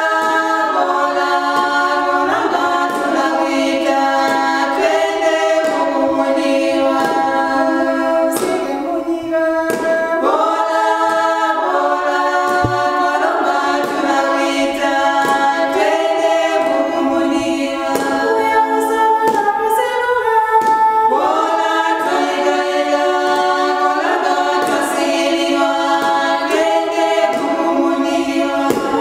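A small group of women singing together a cappella, in several parts at once, with no instruments.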